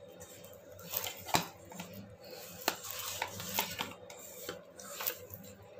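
Hand kneading wet wheat-flour dough in a stainless steel bowl: irregular rubbing and squishing of the dough, with a few sharp knocks against the metal bowl.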